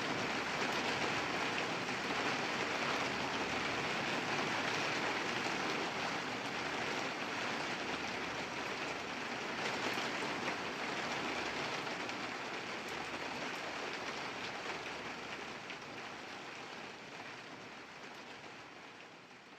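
Steady rain falling, a dense even hiss with scattered drop ticks, fading out gradually over the last several seconds.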